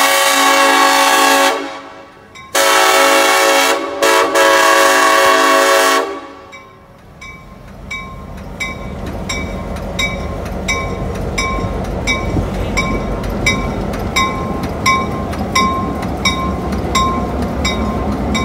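Diesel locomotive air horn sounding long blasts for a grade crossing, with two short breaks. It stops about six seconds in. Then the crossing signal's bell rings about twice a second over the rumble and wheel noise of the passing train.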